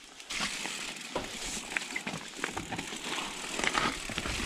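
Mountain bike rolling down a leaf-covered dirt trail: tyres crackling over dead leaves and twigs, with quick clicks and rattles from the bike, starting suddenly about a third of a second in.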